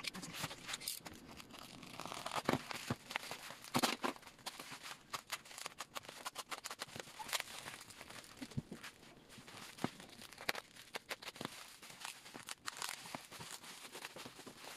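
Black plastic bubble-wrap packaging being torn open and handled, a dense run of irregular crinkles and rustles with a few sharper rips.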